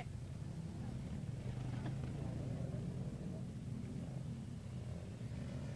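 ATV (quad bike) engine running as the quad rides the dirt race track, a low, steady drone.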